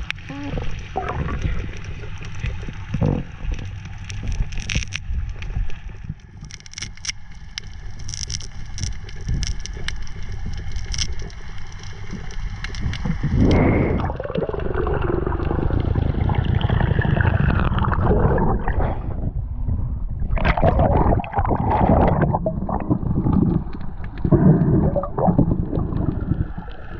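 Water gurgling and sloshing around a diver in the sea, with scattered sharp clicks in the first half; from about halfway the water noise grows louder and rushes in uneven swells.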